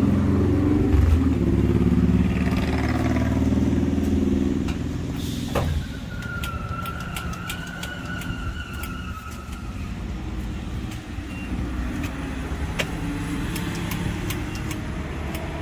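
A Ford F-350's 7.3-litre gas V8 running at idle, which stops abruptly about six seconds in. Gasoline is then pumped into the truck's tank, with a thin steady whine and a few light clicks.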